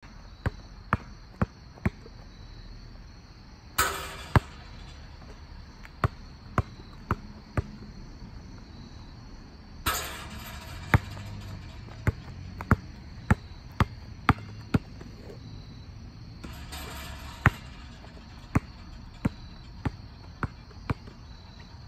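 Basketball bounced on a hard court, sharp bounces about two a second in runs of four to six. Three times a brief noisy rattle as a shot reaches the hoop.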